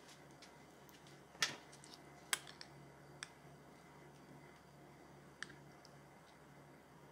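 Handling a crisp fried pork rind (chicharrón) and a metal spoon scooping salsa from a ceramic ramekin gives two sharp crackles about a second apart, then a couple of fainter clicks.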